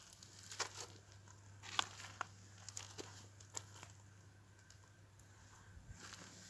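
Faint rustling and crinkling handling noise, with scattered sharp crackles over a low steady hum.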